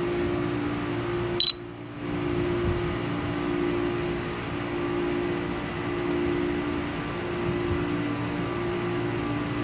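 Camera drone's propellers humming steadily while it hovers and drifts, heard from the drone's own microphone. A short high electronic beep sounds about a second and a half in, and the hum cuts out for half a second before it returns.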